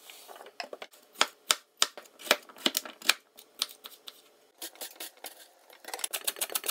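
Kitchen knife chopping on a bamboo cutting board, a string of irregular sharp knocks. Near the end, a plastic mandoline slicer takes over with quick, even slicing strokes, about six or seven a second.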